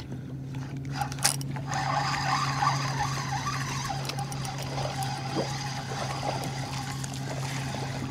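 A boat motor runs with a steady low hum, while a hooked fish splashes at the surface near the boat from about two seconds in.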